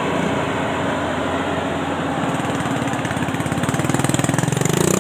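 Yanmar YH850 combine harvester's diesel engine running steadily as the tracked machine drives along a dirt track. Near the end a motorcycle engine comes in, getting louder and changing pitch.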